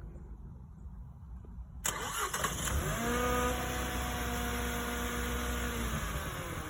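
A vehicle engine passing close by at the level crossing. After a sudden rise in noise, its note climbs, holds steady for about three seconds, then drops in pitch as it goes past.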